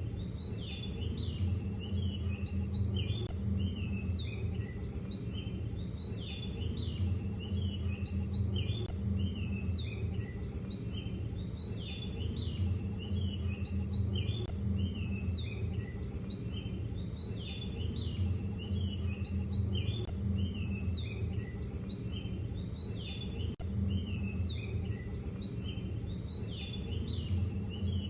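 Birds chirping in the same short phrase over and over, about every two seconds, over a steady low hum.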